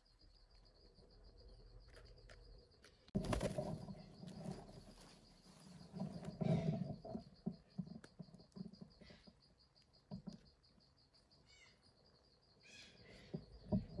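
Faint forest ambience: an insect trills steadily on a high, finely pulsing note, and a few short bird chirps come in the second half. There are louder bursts of rustling noise about three seconds in and again around six to seven seconds.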